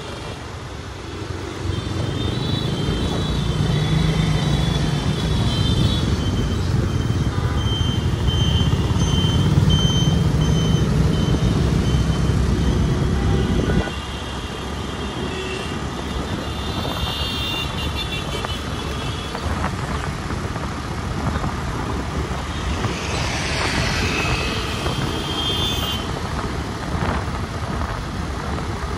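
City road traffic with engines and tyre noise. A heavy low rumble cuts down suddenly about halfway through, and short high-pitched tones come and go several times over the traffic.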